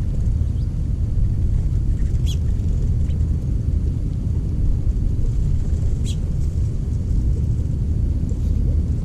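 A steady low rumble, with short high bird chirps about two seconds in and again about six seconds in, and a few fainter chirps in between.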